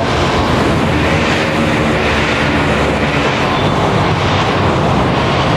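Loud, steady traffic noise of a busy city road, a dense rumble of engines and tyres with no single vehicle standing out.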